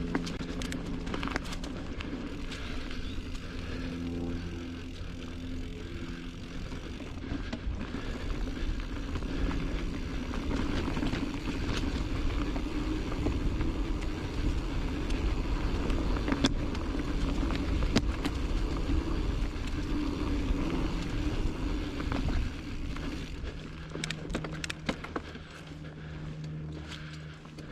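A Giant Trance full-suspension mountain bike being ridden on a dirt singletrack trail: steady rumble of the tyres and bike, with scattered clicks and rattles and a low hum that drops away and comes back near the end.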